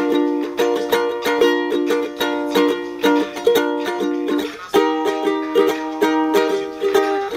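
Ukulele strummed in a steady rhythm, its chords ringing between strokes, with a change to a new chord about two-thirds of the way through.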